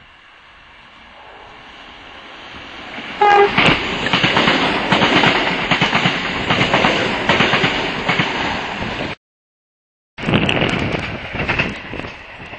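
Class 318 electric multiple unit approaching and passing at speed. The rumble builds, a short horn blast sounds about three seconds in, then comes loud rolling noise with rapid clatter of wheels over the rail. About nine seconds in it cuts to a second of silence, and loud train passing noise resumes and fades.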